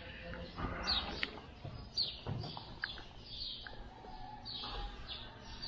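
Small birds chirping: short, high chirps that fall in pitch, repeated every half second or so.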